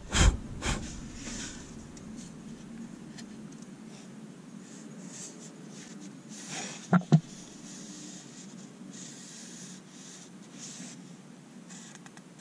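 Gloved hands handling and rubbing a wooden board, with soft scraping and rustling throughout. A couple of sharp knocks come just after the start, and a quick double knock about seven seconds in.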